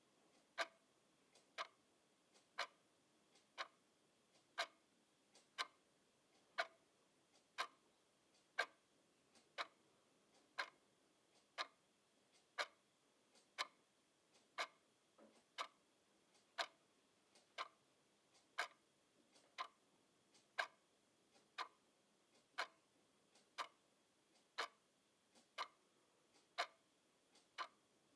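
Clock ticking steadily, one sharp tick about every second, with fainter clicks between some of the ticks.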